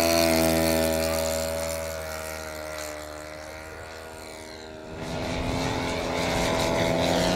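Engine and propeller of a large-scale radio-controlled WW1 fighter model flying past: a drone that falls slightly in pitch and fades. About five seconds in, it changes abruptly to another model's engine, louder and steady.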